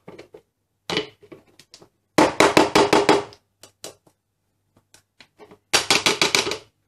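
Ginger being scraped and worked on a blue plastic Tupperware grater set on a plastic shaker container: two bursts of rapid scraping strokes, one about two seconds in and one near the end, each lasting about a second, with scattered plastic clicks between.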